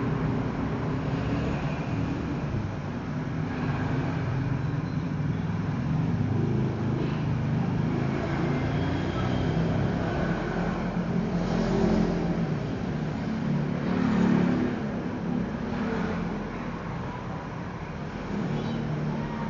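Steady low rumble of motor vehicle noise, swelling twice in the second half.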